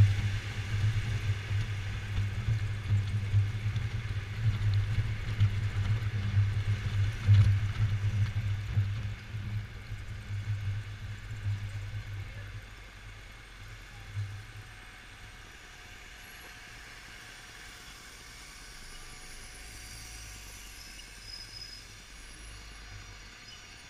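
Yamaha XMAX 250 scooter's single-cylinder engine and road noise while riding, loud for the first half. About halfway through it falls much quieter as the scooter slows.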